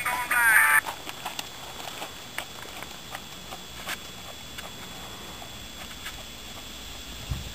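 A voice for the first second, then faint, irregular hoofbeats of a ridden horse on arena sand.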